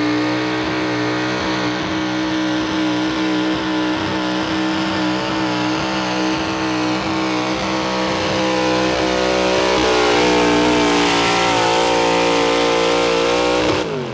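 Pro stock 4x4 pulling truck's big-block V8 (single four-barrel carburetor, 510 cubic inch limit) running at full throttle under load as it drags the weight-transfer sled, held at a steady high pitch. Near the end the engine drops sharply in pitch and level as the driver lets off when the pull ends.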